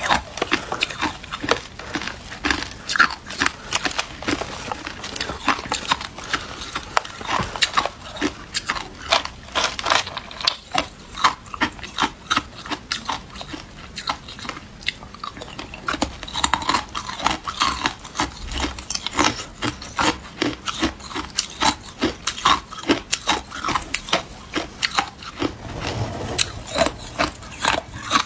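Hard clear ice cubes being bitten and crunched between the teeth: a dense, irregular run of sharp cracks and crunches.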